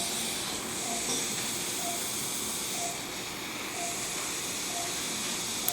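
Steady operating-room hiss, with faint short beeps about once a second from a patient monitor sounding the pulse. A single sharp click comes right at the end.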